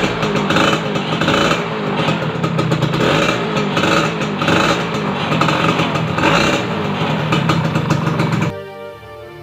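Yamaha SS Two motorcycle engine running, mixed with background rock music that has a steady pulse. About a second before the end, the engine and rock give way to a quieter, slower tune.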